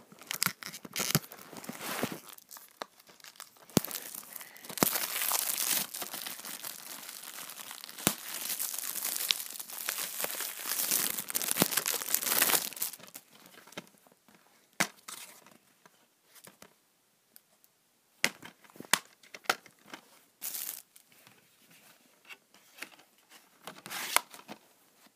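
Plastic shrink-wrap being torn and crumpled off a DVD case: a dense crinkling from about four to thirteen seconds in, then scattered sharp clicks and taps as the case is handled.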